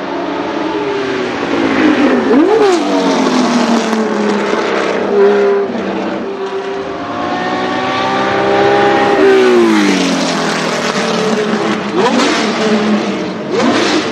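Porsche 917 racing car's air-cooled flat-12 engine running hard and loud. Its pitch falls sharply twice, about two and a half and nine and a half seconds in.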